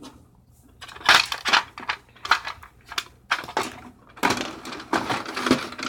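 Small rocks clattering and clicking against one another as they are handled and rummaged through, a quick string of sharp knocks after a brief quiet start.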